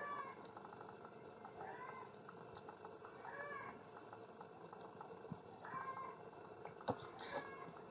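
Baby macaque giving short, high, rising-and-falling calls, about five of them spaced a second or two apart.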